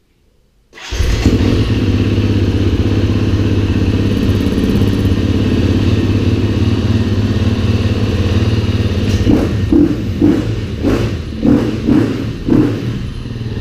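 Dirt bike engine firing up about a second in and running steadily, then revved with several quick throttle blips near the end.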